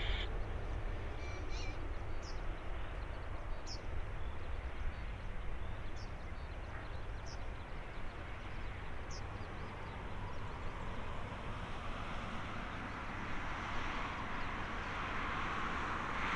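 Distant twin-engine Boeing 787-9 jet at takeoff power, a steady rumble that swells into a louder rushing roar in the last few seconds as the airliner lifts off and climbs. A few short, high bird chirps sound over it in the first ten seconds.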